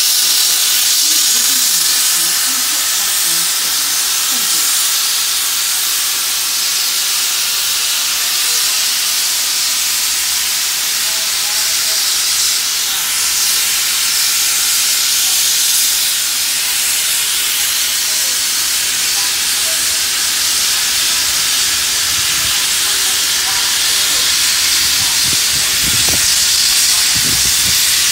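NSW 59 class steam locomotive 5917 hissing steadily and loudly with escaping steam as it pulls its carriages out. A few low knocks come near the end.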